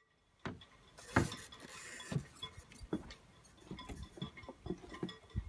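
Metal fittings of a sailboat's outboard engine bracket and deck hardware clinking and knocking as they are handled: about eight sharp irregular clinks, with a rustle of handling about a second in.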